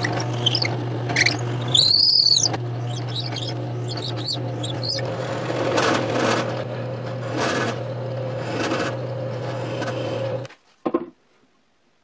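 Drill press running with a steady hum while its bit bores into a laminated wood beam, with a brief high squeal about two seconds in. The running sound cuts off suddenly about ten seconds in, followed by a few light knocks.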